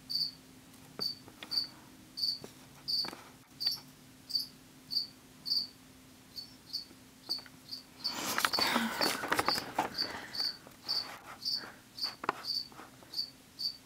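A cricket chirping steadily, about one and a half short high chirps a second. A couple of seconds of close rustling come in a little past the middle.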